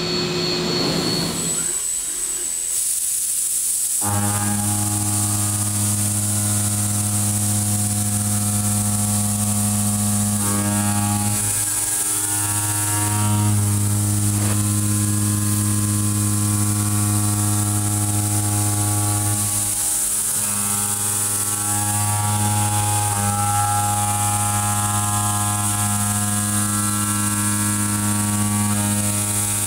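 Kennametal tangential shoulder mill roughing 4140 steel in a DMG MORI DMU 50 machining centre: a steady low drone with a stack of overtones over a high hiss, setting in about four seconds in and dropping out briefly twice, near twelve and twenty seconds.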